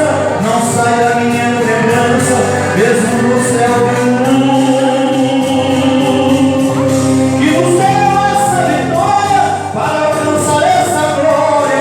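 A church worship band playing a gospel song, with several voices singing together over the instruments and a steady beat.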